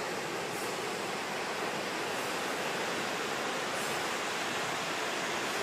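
Ocean surf breaking on the shore: a steady, even wash of noise.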